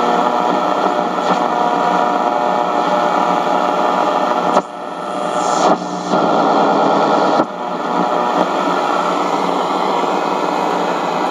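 Radio Shack 12-795 multiband receiver putting out loud static hiss with steady whistling tones through it as the dial is tuned between stations. The hiss drops out and comes back abruptly a few times, about four and a half, six and seven and a half seconds in.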